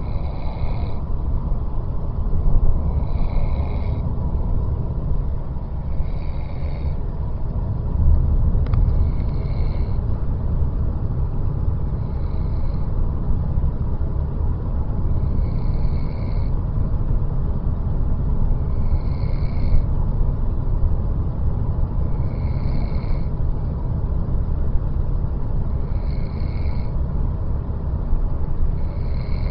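A person snoring: a continuous low rumble, with a short high whistling note on each breath about every three seconds.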